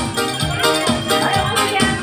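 Upbeat music with a quick, steady beat and a shaker-like rattle.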